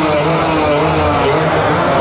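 Several motorcycle engines running together, their pitches rising and falling as they are blipped.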